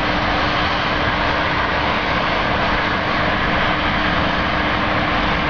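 Uncontrolled blowout on an oil drilling rig: gas jetting from the well and burning, a loud steady rushing roar with a constant hum beneath it and no breaks.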